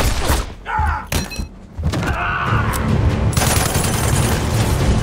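Film soundtrack of rapid automatic gunfire tearing through a wooden train carriage, with splintering and shattering debris. The firing lets up briefly about a second in, then comes back as a dense, continuous volley.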